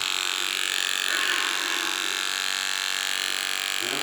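A steady electrical buzz made of many closely spaced tones, unchanging in level throughout.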